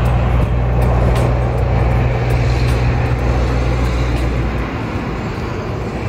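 A motor vehicle engine running close by: a steady low hum under a rushing noise, with the hum falling away about four and a half seconds in.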